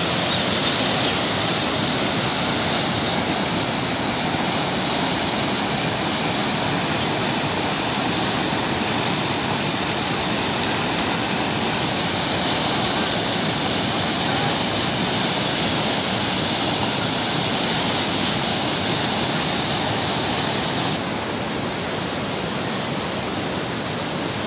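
Muddy river floodwater rushing in a steady, loud noise with no pauses. About three-quarters of the way through it drops to a quieter, duller rush.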